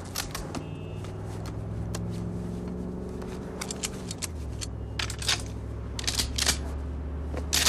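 Sharp clicks, snaps and scrapes of guns and gear being handled and readied, including a shotgun, over a low steady hum that drops in pitch about four seconds in.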